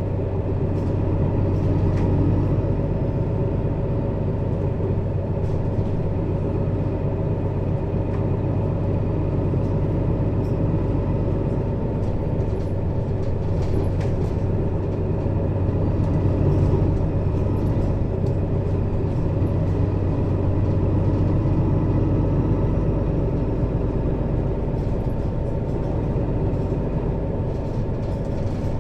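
Mercedes-Benz Citaro city bus engine running steadily, heard from just above the rear engine compartment, with a steady low hum and a few faint rattles; the level swells slightly a couple of times.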